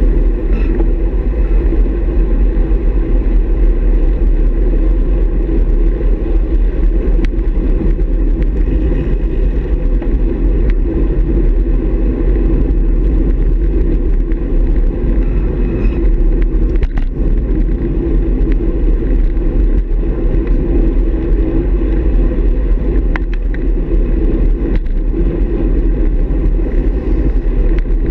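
Steady rush and rumble of wind and road noise on the microphone of a camera mounted on a road bike's handlebars, riding in a group of cyclists on asphalt. A few short, sharp clicks stand out along the way.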